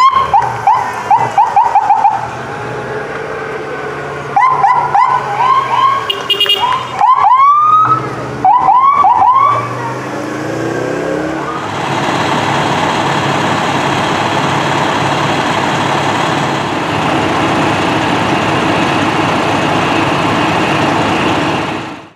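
Electronic emergency-vehicle sirens whooping in bursts of short, fast rising yelps for about the first ten seconds. From about twelve seconds a steady loud noise with no changes in pitch takes over and cuts off abruptly at the end.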